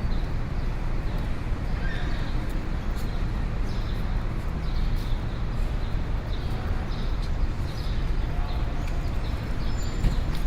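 Busy city street ambience: a steady low rumble of traffic and crowd, with a run of short light taps throughout.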